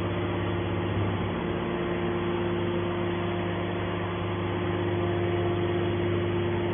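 Horizontal hydraulic scrap-metal baler running with a steady machine hum.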